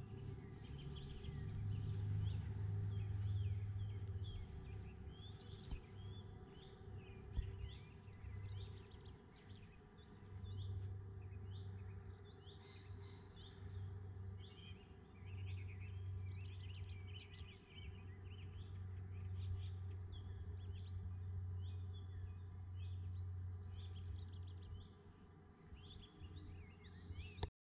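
Several birds chirping and warbling throughout, over a low rumble that swells and fades.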